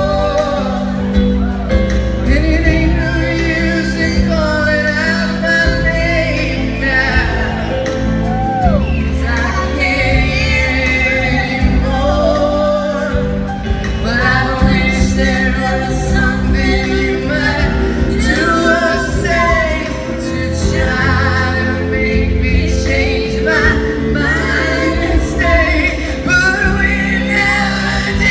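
Live band music with several male and female voices singing together over electric guitar and a steady bass.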